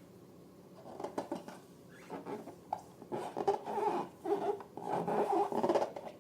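Hands squeezing and rubbing rubber balloons and slime: irregular close rubs and short rubbery squeaks, starting about a second in and getting busier toward the end.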